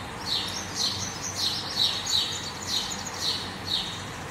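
A small bird chirping over and over: short, high chirps that slide downward, about two a second.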